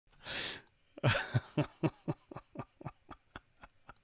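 A man laughing: a breathy burst, then a run of short chuckles, about four a second, fading away.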